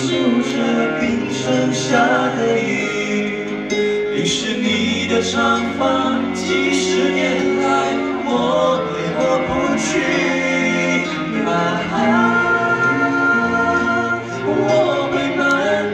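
A man and a woman singing a song live into microphones, amplified, with musical accompaniment.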